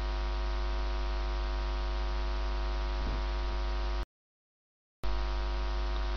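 Steady, buzzy electrical mains hum. It cuts out to dead silence for about a second a little after four seconds in, then comes back unchanged.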